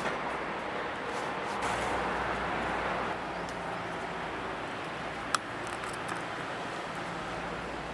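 Steady background hiss and low rumble, with a single sharp click about five seconds in as tie wire is twisted around the corner of a steel wire-mesh cage.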